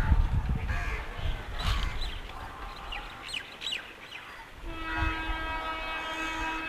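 A low rumbling noise and a few short high chirps, then about four and a half seconds in a WCAM-1 electric locomotive's horn starts a long, steady blast that carries on past the end.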